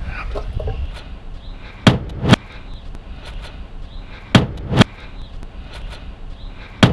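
Five sharp bangs of something hard being struck: two quick pairs about two and a half seconds apart, then a single bang near the end, over a steady low wind rumble on the microphone.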